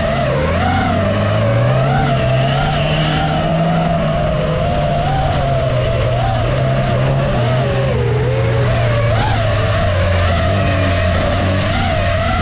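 Autocross race car engines running hard, their low note stepping up and down with the gear changes, under a higher whine that wavers up and down in pitch.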